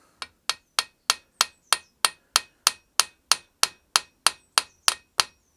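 Hammer striking steel in a quick, even run of about seventeen blows, roughly three a second, each with a short metallic ring. The blows are being used to knock loose a tapered fitting on a stump grinder shaft.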